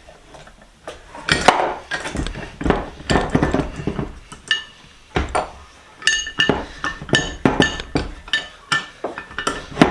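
Metal parts of a bench vise clanking and clinking as it is being dismantled, with a run of sharp, ringing metal strikes in the second half, about two a second.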